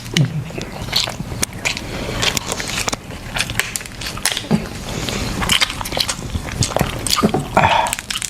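Close-up eating sounds of seafood being bitten and chewed: irregular sharp clicks and crunches, with a short breathy burst near the end.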